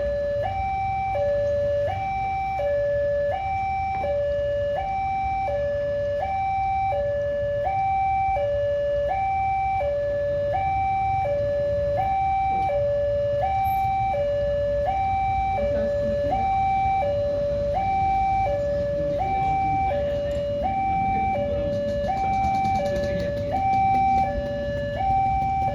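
Railway level-crossing warning alarm sounding as the barrier is down: two electronic tones, high then low, alternating evenly about once every second and a half, with a steady low rumble underneath.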